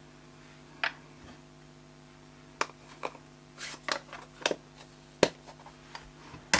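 Scattered sharp plastic clicks and light knocks, bunched in the middle and loudest near the end, as a plastic-cased ink stamp pad is closed and set aside on a craft table.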